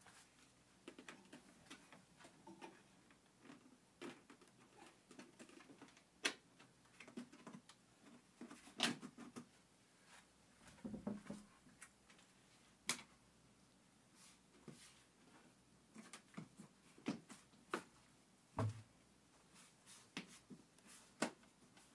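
Scattered light clicks and taps of hand tools and plastic trim parts being handled, a few of them sharper, with a dull thump about three-quarters of the way through.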